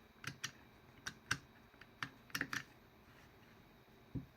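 Power seat adjustment switch unit from a 2016 Nissan X-Trail T32 being worked by hand off the car, its microswitches giving a series of short, sharp clicks, some in quick pairs. The switches are being checked for clicking and returning after a contact-cleaner treatment.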